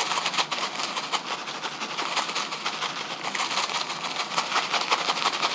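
A snack bag of crushed dry ramen noodles being shaken with its seasoning: a steady rattling, crinkling rustle of loose noodle bits and plastic.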